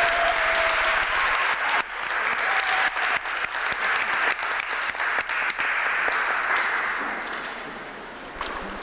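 Audience applauding, dense and steady, then dying away over the last couple of seconds.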